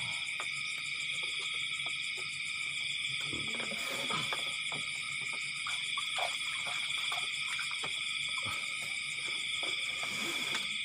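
Night-time chorus of frogs and insects: a steady high-pitched trilling, with scattered faint clicks and knocks.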